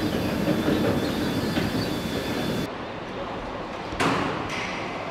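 Factory machinery noise: a steady mechanical rumble and clatter that changes abruptly about three seconds in, with a sudden loud hit a second later.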